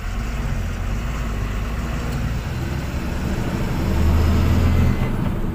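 Truck engine running steadily under way, a low drone with road noise, swelling louder for about a second near the end.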